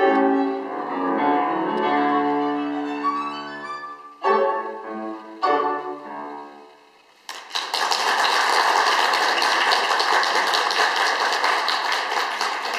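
Violin and grand piano finishing a classical piece with two short closing chords, the last one dying away. About seven seconds in, audience applause starts and carries on steadily.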